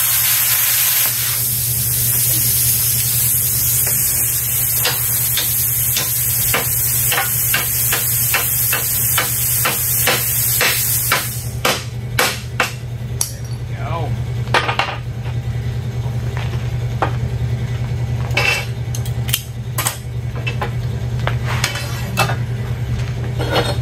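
YesWelder CUT-55 plasma cutter hissing as its arc cuts through 3/8-inch steel plate, cutting off sharply about halfway through. It is followed by scattered sharp metal clanks and knocks as the cut steel pieces are handled, over a steady low hum.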